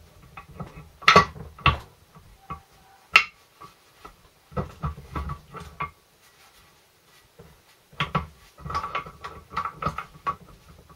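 Gears and mainshaft of a Land Rover Series 3 gearbox clinking and knocking against each other and the casing as they are worked into place by hand. A few sharp metal clinks in the first three seconds, then clusters of smaller knocks.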